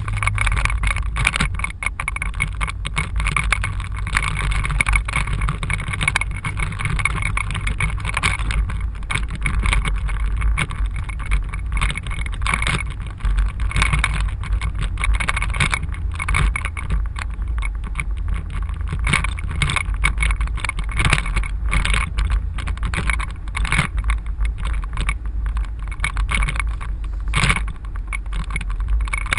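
A car driving, heard from inside the cabin: a steady low rumble of engine and tyre noise with an even road hiss and frequent small irregular crackles.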